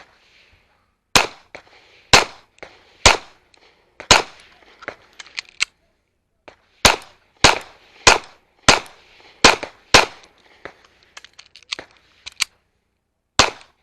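Backup pistol firing a timed IDPA stage string: about a dozen sharp shots, spaced about half a second to a second apart, with a pause of about two seconds around the middle and a last shot near the end.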